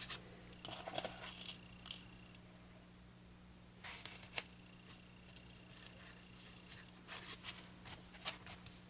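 Fabric rustling and being handled in short bouts, as it is stretched and pinned over a styrofoam board, with a steady low hum underneath.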